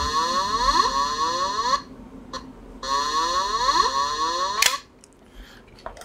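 Electronic alarm sound played by the PC alarm-monitoring software on a laptop: two bursts of about two seconds each of rapidly repeating rising electronic tones, about a second apart. It signals that an alarm switch panel on the relay board's input has been pressed.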